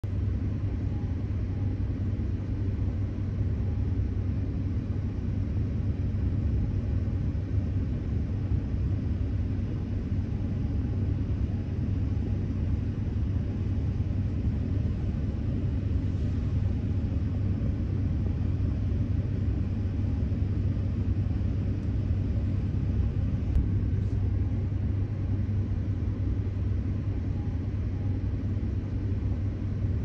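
Steady low rumble with no distinct events, broken only by a couple of faint clicks about three-quarters of the way through.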